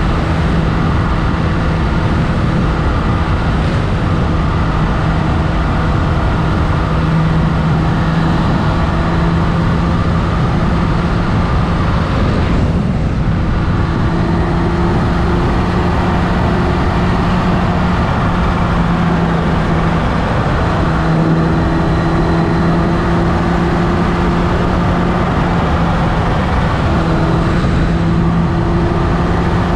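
Kawasaki H2 motorcycle engine running at a steady road cruise under heavy wind noise on the microphone. The engine note drops out briefly about 13 seconds in, then returns and shifts slightly in pitch a couple of times.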